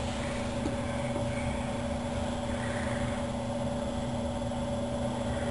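Steady mechanical hum holding a constant low tone and a fainter higher tone over an even hiss, with no change in speed or pitch.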